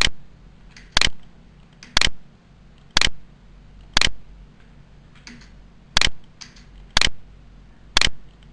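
Sharp single clicks, about one a second, with one beat missing about five seconds in, and a few fainter clicks between them.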